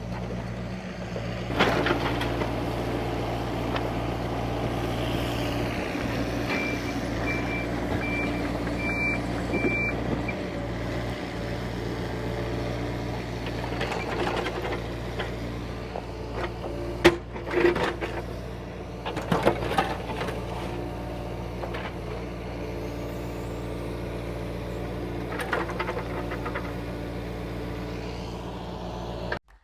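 Rented excavator's diesel engine running steadily, with a row of short, high alarm beeps from about six to ten seconds in. Scattered sharp knocks and clatters, loudest about 17 seconds in, come from the excavator moving fractured granite boulders.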